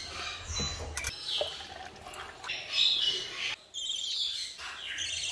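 Birds chirping, a run of short high-pitched calls, with a couple of sharp clicks about a second in.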